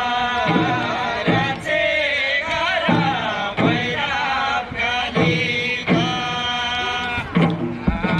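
Singing with music: a voice holding long, wavering notes in phrases of about a second each.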